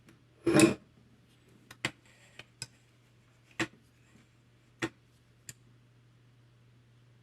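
Clicks and taps of steel wire track pieces and small spring clamps being handled and set in place: a short clatter about half a second in, then half a dozen sharp, irregularly spaced clicks over the next few seconds.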